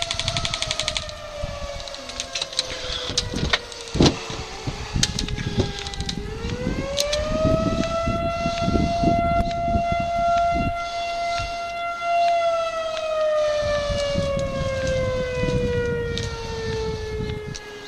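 A siren's wail, slowly winding down in pitch, winding back up about six seconds in, holding for several seconds, then slowly sliding down again. Sharp clicks are scattered through it, with a rapid run of them at the start.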